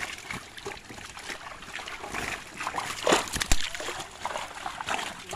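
Fish thrashing and splashing in shallow water, crowded together inside a gill net, with hands scooping and slapping through the churning water. The splashes come irregularly, and the loudest hits land a little past three seconds in.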